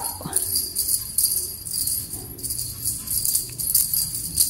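Small jingle bells on a rocking flower cat toy jingling over and over as cats bat at it and set it swinging.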